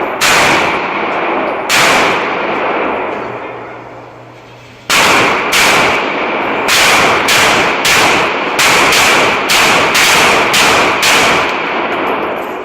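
Pistol shots at a shooting range, each with a long echoing tail: two shots, a pause of about three seconds, then a steady string of about a dozen at roughly two a second.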